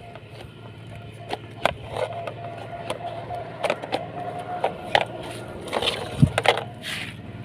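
An excavator's motor running steadily with a thin whine that holds for a few seconds, amid scattered short clicks and knocks.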